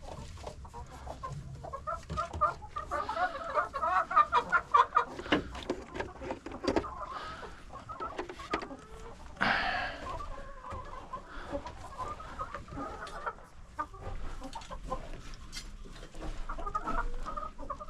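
Chickens clucking, with a run of rapid clucks a few seconds in and one louder call near the middle.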